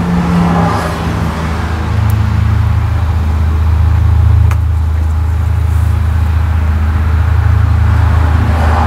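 Steady low mechanical hum, like a motor running, growing a little louder about two seconds in.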